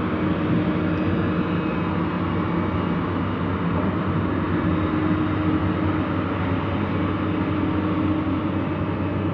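Heavy diesel engine running steadily at a constant speed, an even low hum with no revving or knocks.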